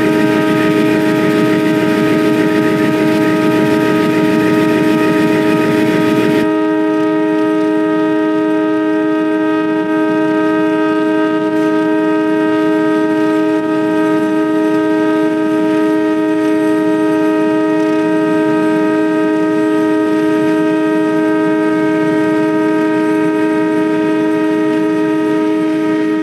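Diesel locomotive's two-tone air horn sounding in one long, unbroken blast, a steady chord. A rushing hiss underneath cuts off suddenly about six seconds in while the horn holds on.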